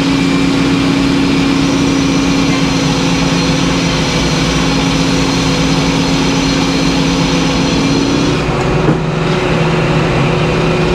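Circular sawmill running as its large blade saws through a white pine log on the carriage: steady machine noise with a hum that stops about eight seconds in, followed by a light knock.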